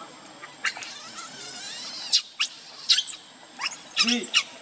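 Baby monkey giving a string of short, high-pitched squeaks, with one lower call about four seconds in.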